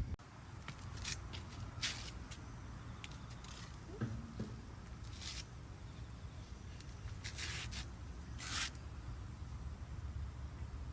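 A series of short scraping or rustling sounds, about six of them and spaced unevenly, over a low steady hum, with a faint brief squeak about four seconds in.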